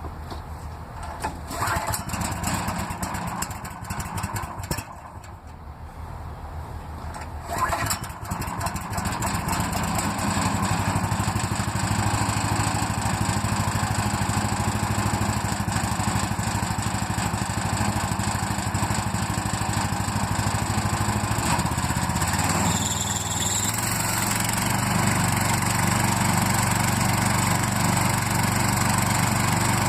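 Gas engine of a Woodland Mills HM130 Max portable bandsaw mill, surging a couple of times in the first eight seconds, then running steadily at speed as the band blade saws through a short black walnut log. The engine note shifts a little about three quarters of the way through.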